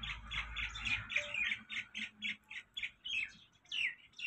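A bird calling in a rapid run of short repeated notes, about four to five a second, that slows near the end into a few falling slurs.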